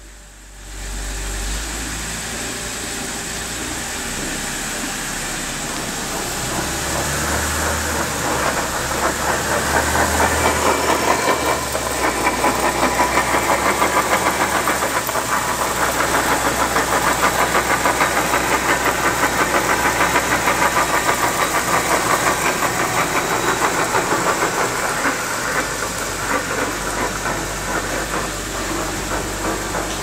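BMW X3 F25 drivetrain running in gear on a lift with the wheels spinning: a rapid, rhythmic grinding and knocking from the front differential, louder from about ten seconds in and easing slightly near the end. The front differential has failed internally after losing its fluid.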